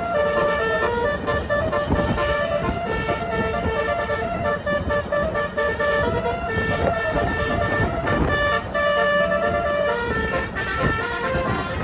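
A bus's basuri 'telolet' musical air horn playing a melody of stepped notes that change every fraction of a second, over steady vehicle and street noise.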